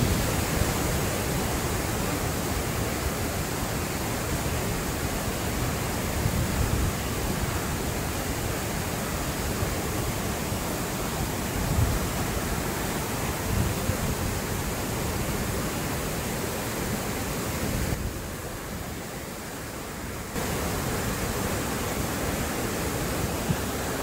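White water of the Banias stream rushing over rocks and rapids: a steady, even rush, dropping a little quieter for about two seconds about three-quarters of the way through.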